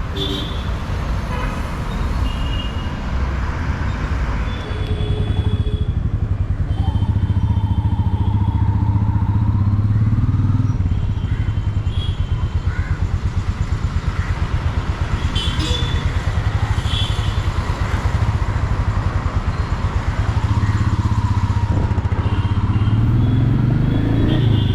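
Royal Enfield Meteor 350's single-cylinder engine and exhaust running at cruising speed with an even, rapid thump, getting louder about five seconds in.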